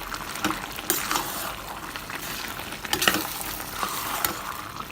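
A spoon stirring chilly chicken in a pan over a light sizzle, mixing in the tomato and chilli sauces just added, with scattered scrapes and clicks of the spoon against the pan.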